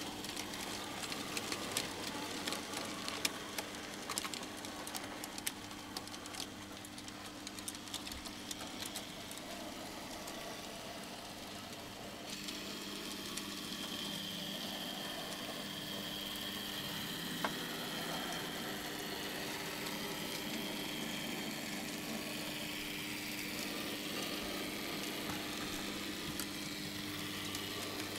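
009 model NG15 locomotive on a Kato 2-8-0 chassis running with its train, its small electric motor humming steadily while wheels click irregularly on the track. About twelve seconds in the clicking thins out into a smoother running noise with a faint high whine.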